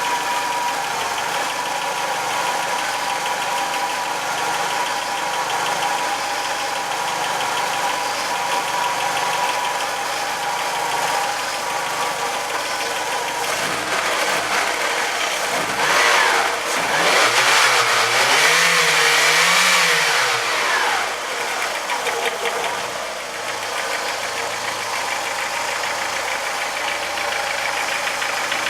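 VW Jetta Mk2's 1.8-litre four-cylinder petrol engine running cold with a strange knock. Near the middle it is revved up once and falls back to idle.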